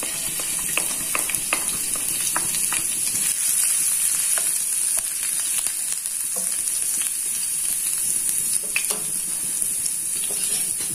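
Chopped garlic sizzling steadily in hot oil in a frying pan, stirred with a wooden spatula, with scattered light clicks.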